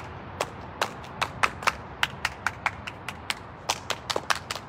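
A few people clapping, sharp separate claps out of step with each other, about five a second, during a group cheer.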